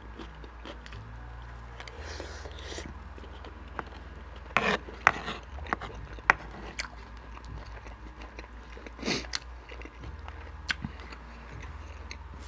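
Close-miked chewing and biting of a person eating, with a few sharp crunchy bites and mouth clicks grouped around the middle, over a steady low hum.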